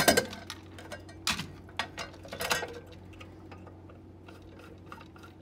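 Sharp clunks and knocks of a Honeywell flame safeguard relay and its subbase being handled and set on a workbench, four or five in the first couple of seconds, then faint ticking of a screwdriver turning a cover screw.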